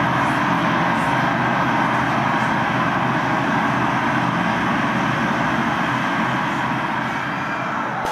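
A loud, steady mechanical rumble and hiss from a film soundtrack, played over the venue's loudspeakers.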